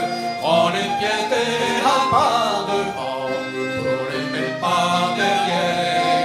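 Men singing a Breton traditional dance song, with each line sung by one singer and repeated by another.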